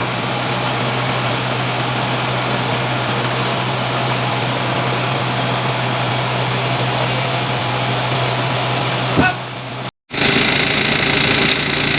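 Sawmill machinery running steadily with a constant engine hum. A little after nine seconds the sound dips, breaks off for an instant, and resumes as a different, higher-pitched steady machine noise.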